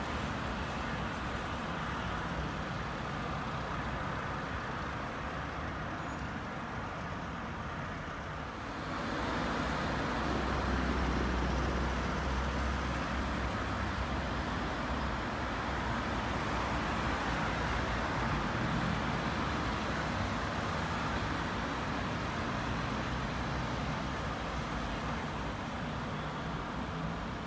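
City road traffic: a steady wash of passing cars. It swells about nine seconds in, with a low rumble for a few seconds.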